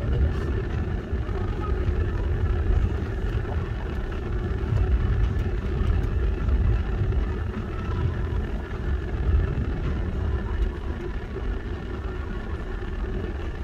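Steady engine and road rumble heard from inside a moving car's cabin.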